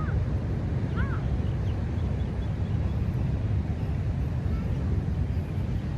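Steady wind rumbling on the microphone outdoors, with two short chirping calls near the start.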